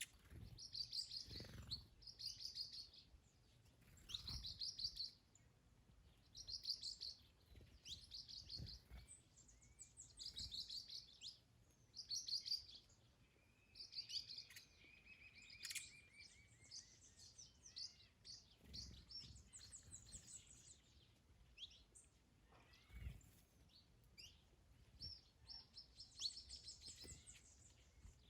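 Faint garden birdsong: a small bird repeats a short, high, buzzy trill every second or two, with other birds chirping and a lower rasping call about halfway through.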